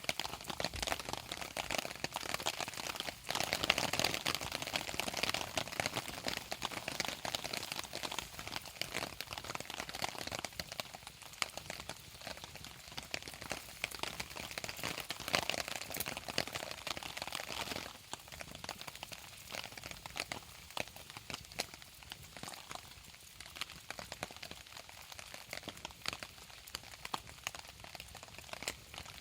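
Campfire crackling and popping with rain falling around it. The crackle is a dense patter of small sharp snaps, louder for the first two-thirds and then settling lower.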